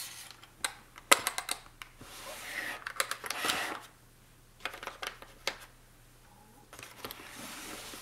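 Small tabletop storage drawer sliding open and shut, with clicks and taps as rolls of tape and ribbon inside are handled, the sharpest click about a second in.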